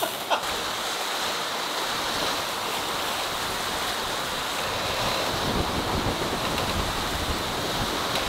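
Strong wind and rushing, breaking seas around a catamaran sailing fast downwind. Wind buffets the microphone with a heavier rumble from about halfway through.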